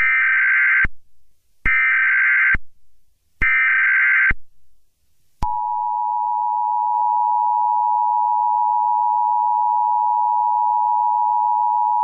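Emergency Alert System SAME header: three identical bursts of warbling digital data tones, each just under a second long and about a second apart, encoding the alert. About five seconds in, the EAS attention signal starts: a loud, steady two-tone alarm held unbroken, which tells listeners that an emergency message follows.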